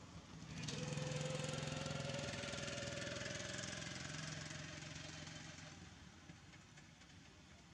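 A motor engine running in the background, coming in about a second in with a steady hum whose pitch creeps slightly upward, then fading away near the end.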